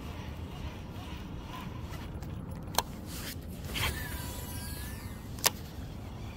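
Sharp clicks from a baitcasting rod and reel being handled: one a little under halfway through and a louder one near the end, with a brief scraping rustle between them. A steady low rumble runs underneath.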